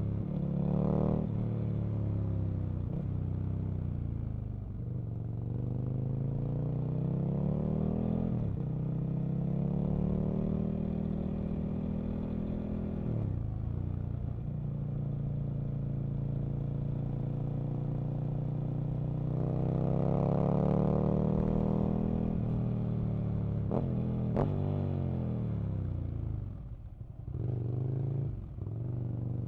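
Aprilia RSV Mille's 998 cc V-twin engine pulling hard under acceleration, its revs climbing and then dropping sharply several times as the gears change. Near the end the throttle comes off and the engine note falls, broken by a few quick sharp throttle blips.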